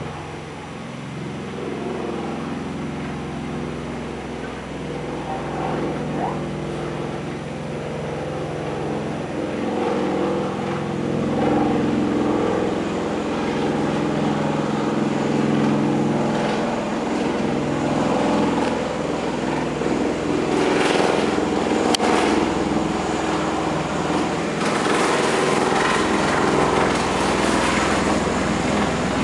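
Bell Boeing V-22 Osprey tiltrotor flying low in helicopter mode, its two big proprotors and turboshaft engines making a steady droning hum of several pitched tones. The sound grows gradually louder as the aircraft approaches.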